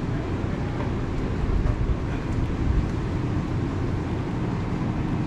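Steady low rumble of supermarket background noise, with a faint steady hum.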